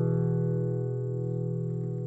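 Music: a strummed guitar chord ringing out and slowly fading.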